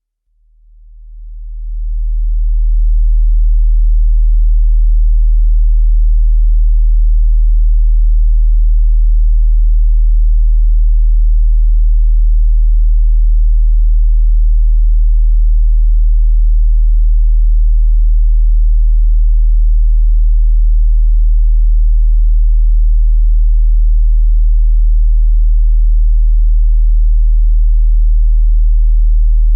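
A 40 Hz sine-wave test tone, a very deep steady hum, swelling up over the first two seconds and then holding at a constant level. It is a test signal for checking whether a car or home audio system can reproduce low bass.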